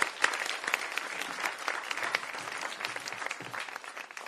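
Audience applauding to welcome a speaker, the clapping easing off near the end.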